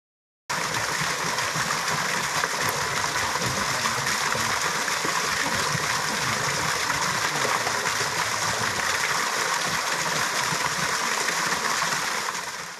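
Peavine Falls, a thin waterfall, splashing steadily onto rock and into a shallow pool. The rush cuts in abruptly about half a second in and fades away near the end.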